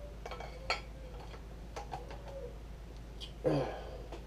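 Light metallic clicks and clinks from a Remington Model 11 shotgun barrel being handled and fitted back onto the gun, with a short thud about three and a half seconds in.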